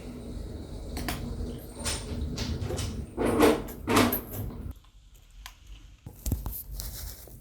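Several soft knocks and rustles in a small room, with a quieter spell after about five seconds before a few more small knocks near the end.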